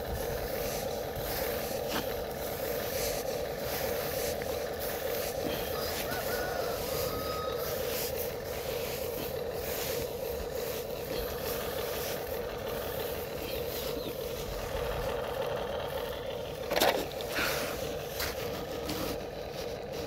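Huina remote-control toy excavator running with a steady hum while it works its boom and bucket over a sand pile. A single short knock comes near the end.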